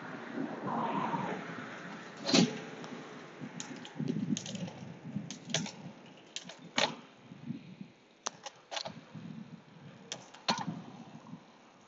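Bicycle ridden up a steep climb, with a low uneven rattle and a dozen or so irregular sharp clicks, the loudest about two and a half and seven seconds in. The clicks fit gear shifts as the rider changes down to the easiest gear.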